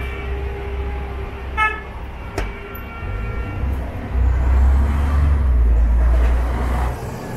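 Street traffic with a short car-horn toot about a second and a half in. A knock and a brief second tone follow, then a loud low rumble of a motor vehicle passing close for about three seconds.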